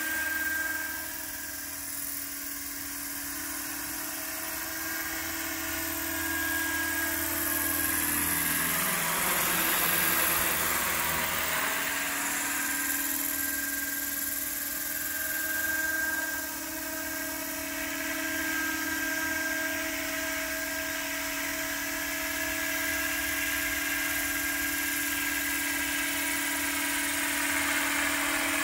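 RC scale Bell 429 helicopter hovering and flying slowly: a steady high whine from its drive over a low rotor hum. About ten seconds in it grows louder and sweeps in pitch with a brief swoosh, then settles back to a steady drone.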